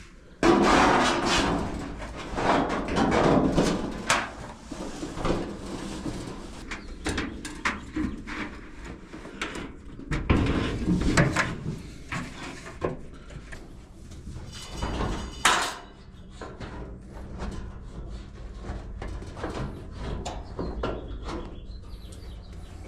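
Dryer parts being handled during reassembly: an irregular run of knocks, clunks and scraping of metal and plastic parts, with longer rattling scrapes in a few stretches.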